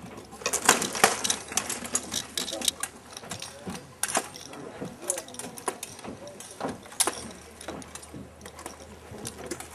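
Rattan swords cracking against shields and armour in SCA heavy combat: a quick flurry of blows about a second in, then single sharp strikes about four and seven seconds in.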